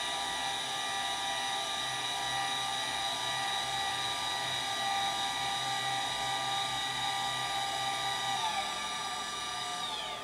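Celestron CGX equatorial mount's motors slewing at full speed to an alignment star, a steady high whine made of many tones. About a second and a half before the end, the whine falls in pitch as the mount slows, then stops.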